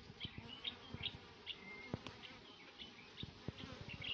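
Faint buzzing of honeybees on an open hive, with short high chirps and light ticks and taps scattered through it.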